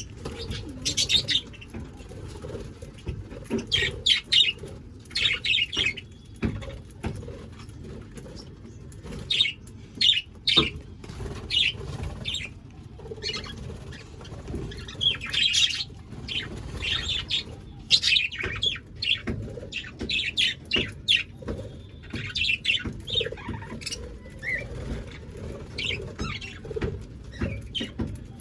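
A flock of budgerigars chattering and chirping, many short calls overlapping, with wingbeats mixed in, over a steady low rumble.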